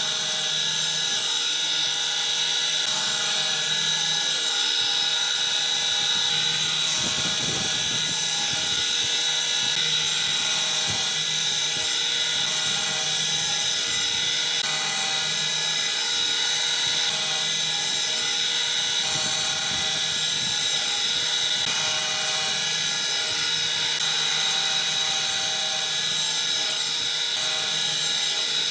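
Table saw running with a steady high whine, its blade cutting a row of shallow kerfs into a pine board. It makes about ten passes, each a couple of seconds of hissing cut, with short breaks between them.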